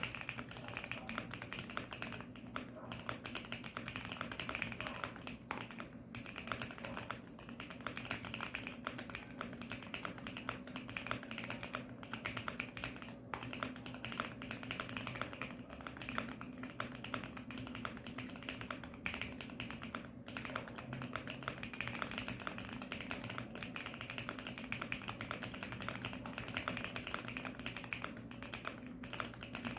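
Fast typing on a QK65 65% mechanical keyboard built for a deep 'thock' sound: a dense, continuous run of keystrokes with a few brief pauses.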